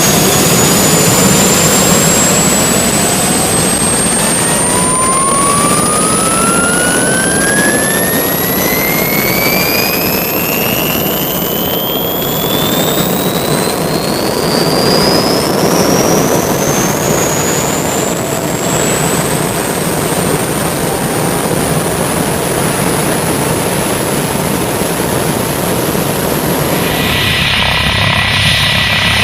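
Aircraft turbine engine spooling up: a loud whine that climbs slowly and steadily in pitch over the engine's rushing noise.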